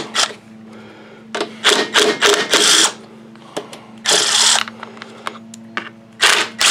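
Cordless impact wrench running in several short bursts, hammering 10 mm bolts loose on a small mower engine's carburetor and air cleaner mount.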